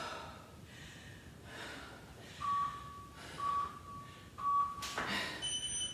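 Workout interval timer counting down: three short beeps about a second apart, then a longer, higher-pitched beep near the end that marks the start of the round. Heavy breathing comes between the beeps.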